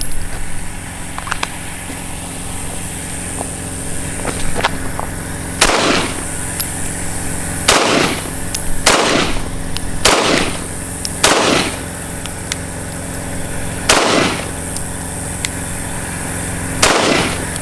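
CZ P07 pistol fired seven times in single, unevenly spaced shots, about one to three seconds apart, over a steady low hum. The pistol is firing again after its firing pin was replaced.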